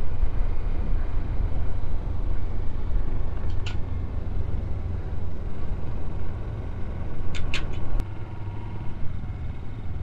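Motorcycle riding noise: the engine's steady low rumble mixed with wind on the helmet microphone, easing off slightly over the seconds.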